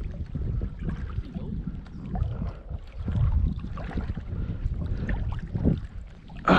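Wind buffeting the microphone in uneven gusts, a low rumbling noise.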